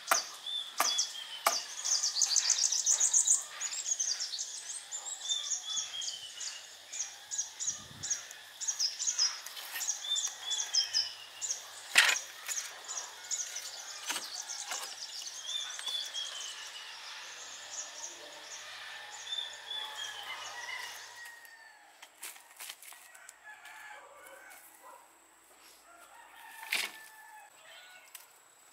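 Wild birds chirping and trilling, one falling phrase repeating every few seconds, over sharp knocks of a bamboo post being driven with a wooden mallet; the loudest knock comes about halfway through. The birdsong stops about three quarters of the way in, leaving a few knocks and rustling.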